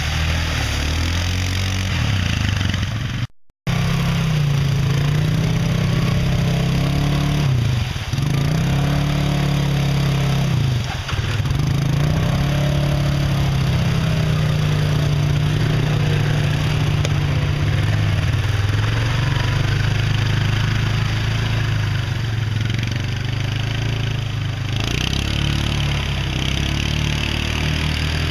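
ATV (four-wheeler) engines running and revving as the quads churn through mud holes and water, the engine note sagging and picking up again under load, with mud and water spraying off the tyres. A brief dropout a few seconds in.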